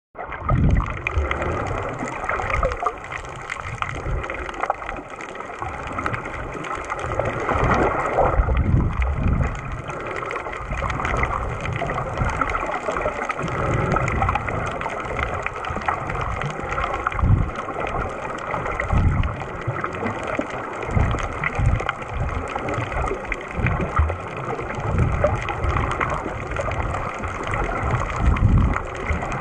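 Muffled underwater water noise picked up by a camera in its waterproof housing: continuous rushing and gurgling with irregular low surges every second or two.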